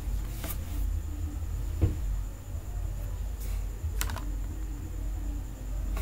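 A few scattered computer mouse clicks, with a quick double click about four seconds in, over a low steady hum.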